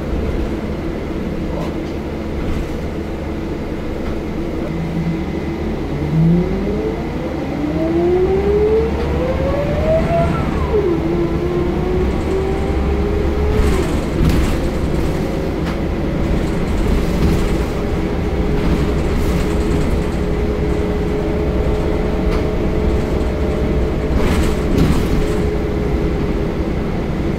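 Scania L94UB single-deck bus's diesel engine and drivetrain, heard from inside the saloon as the bus pulls away and accelerates. A whine rises in pitch for about five seconds, drops at a gear change, then holds a steady tone under the engine's low drone, with a few body rattles.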